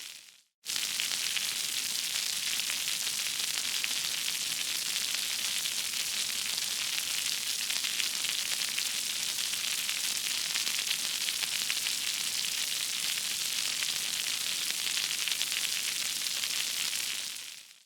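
Water falling steadily onto concrete, a constant splashing hiss. It cuts out briefly just after the start, and fades out near the end before coming straight back.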